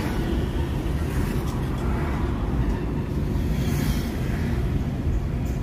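Steady road and engine rumble of a car driving, heard from inside the cabin, with a faint hiss that swells briefly about four seconds in.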